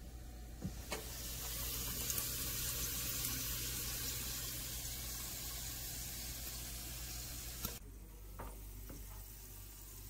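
Calphalon countertop air fryer oven running while cooking cut potatoes: a steady hiss over a low hum, becoming quieter about eight seconds in.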